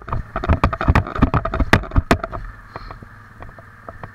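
Small Yamaha youth ATV engine running under a burst of sharp knocks and rattles over the first two seconds or so, then a quieter steady hum.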